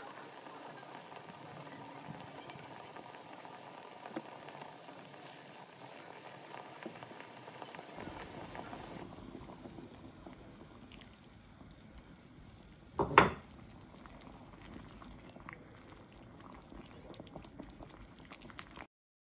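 Braising sauce of mushrooms and wood ear bubbling at a boil in an enamelled pot. Water-starch slurry is then poured in and the sauce stirred with a spatula, with one loud sharp knock about two-thirds of the way through and light taps after it.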